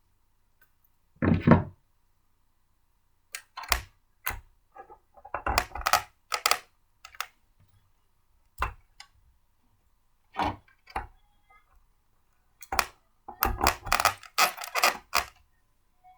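Clicks and knocks of blender parts being handled and fitted together by hand, irregular and scattered, with one heavier thump about a second in.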